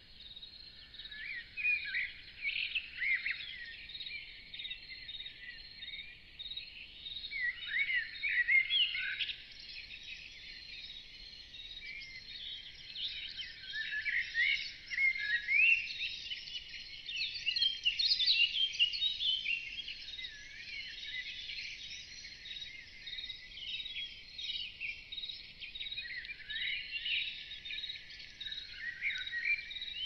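Songbirds singing many short chirps and trills that come and go, busiest in the middle, over crickets chirping in a steady, even pulse.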